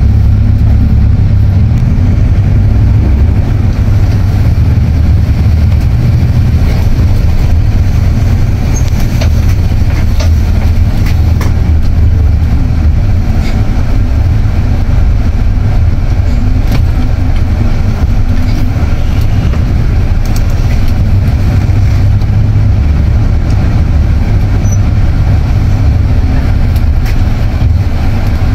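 Coach bus engine and road noise heard from inside the cabin: a steady, loud low rumble as the bus drives through traffic.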